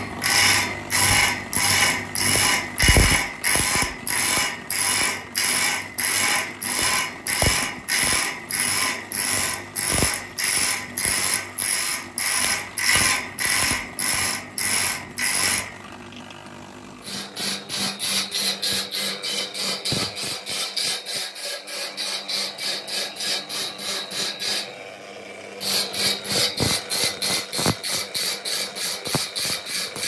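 Electric motor-driven grinding wheel sharpening a band saw blade tooth by tooth, with a rhythmic grinding rasp about twice a second as each tooth meets the wheel. It breaks off briefly twice, about sixteen and twenty-five seconds in.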